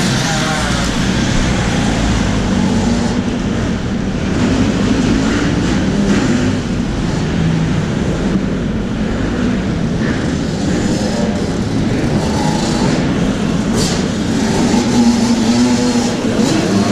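Several motocross bikes running on a dirt track, their engines revving up and down with pitch that rises and falls repeatedly.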